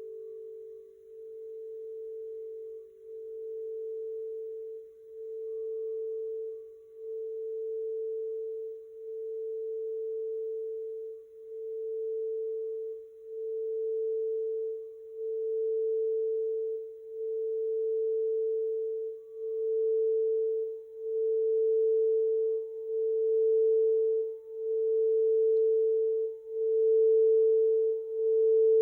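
Quartz crystal singing bowl sounding one steady pure tone that swells and dips about every two seconds and grows gradually louder. A slightly lower second tone fades out about a second in, and a faint higher overtone joins later.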